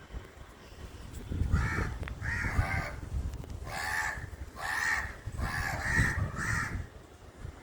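Crows cawing, about seven harsh caws in quick succession, some in pairs.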